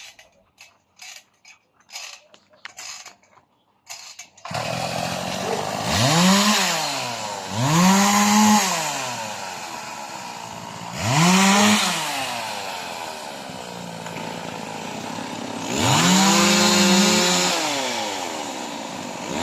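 A few faint clicks and knocks, then about four and a half seconds in a chainsaw starts running and is revved up and down about four times, dropping back to a lower steady run between revs.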